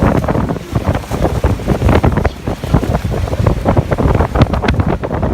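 Heavy wind buffeting the microphone in irregular gusts, over the rushing water of Niagara Falls.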